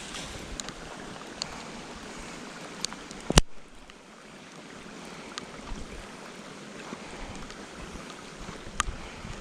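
Steady rain hiss with scattered sharp drip ticks. There is one loud knock about three and a half seconds in, after which the hiss drops briefly.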